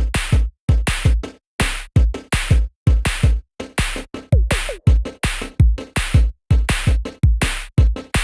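Electronic background music with a punchy drum-machine beat, deep bass kicks about twice a second, and occasional falling synth sweeps.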